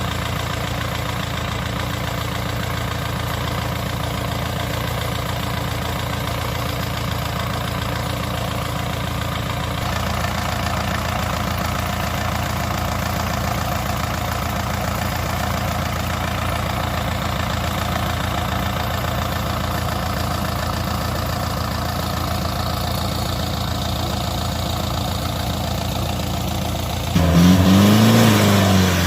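Diesel engine of rice-harvesting machinery running steadily. Near the end it gets louder, its note rising and then falling.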